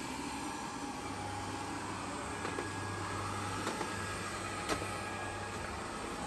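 GleeU GRS1 robot vacuum running with a steady motor whir and hum, with a couple of light clicks along the way.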